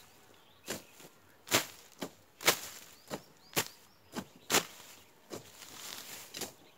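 Long-handled hoe chopping into grass and soil as weeds are cleared by hand: a sharp chop about once a second, some strokes much louder than others.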